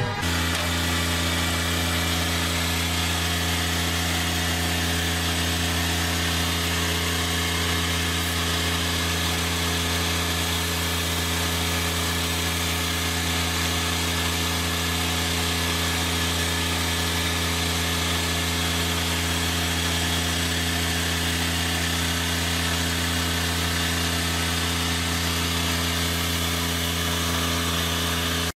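Self-propelled sand topdresser running at a steady speed while its rear brush spreads sand: an even, unchanging mechanical drone with a steady whine.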